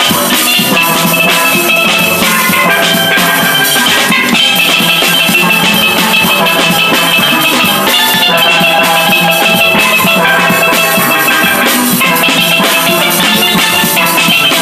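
Steel band playing a tune on steel pans, many ringing pitched notes with drums keeping the beat, loud and continuous.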